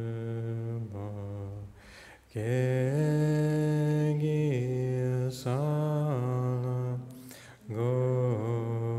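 A man's voice chanting a Buddhist prayer slowly, in long held notes. The pitch steps up after a breath about two seconds in and comes back down a few seconds later, with a second pause for breath near the end.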